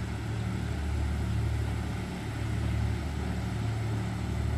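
Towboat's diesel engines pushing a string of barges on the river: a steady, relatively quiet low drone.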